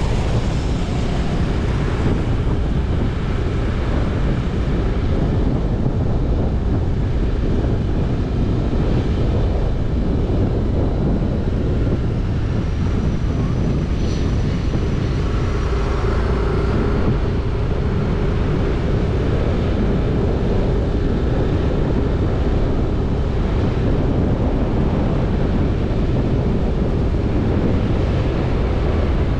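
Wind rushing over an action camera's microphone on a moving motor scooter, with the scooter's engine and road noise underneath. A faint high whine passes briefly about halfway through.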